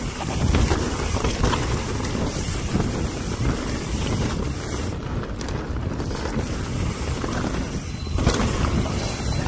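Mountain bike rolling fast downhill on a dirt forest trail: a steady rush of wind on the microphone over the rumble of the tyres, with the bike rattling and clicking as it goes over rough ground.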